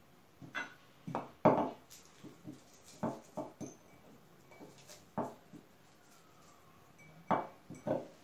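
Kitchen utensils and glassware being handled: about a dozen irregular knocks and clinks, the loudest about a second and a half in.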